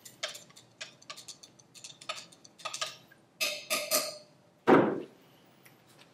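Metal spatula stirring a liquid in a glass beaker, ticking and clinking against the glass in quick irregular strokes, then a few louder taps. A dull thump about three-quarters of the way through is the loudest sound.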